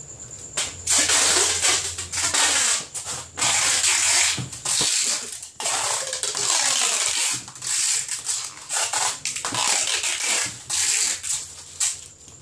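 Plastic packaging being handled close by, crinkling and rustling in irregular loud bursts with short pauses between them.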